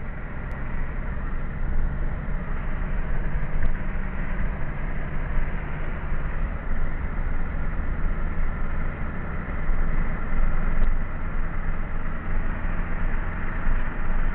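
Car driving along at a steady speed, heard from inside the cabin: a constant drone of engine hum and road noise.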